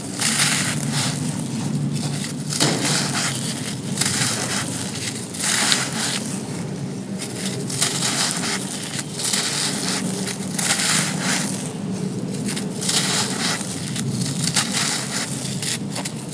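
Dry, gritty sand cones being crushed and crumbled by hand: a run of crunchy, gritty crumbling strokes, about one a second.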